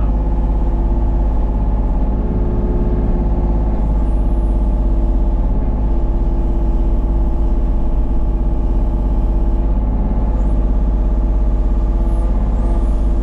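Kubota KX033-4 mini excavator's three-cylinder diesel engine running steadily under load while the arm and bucket work in brush, with a steady whine that comes and goes in stretches as the hydraulics are worked.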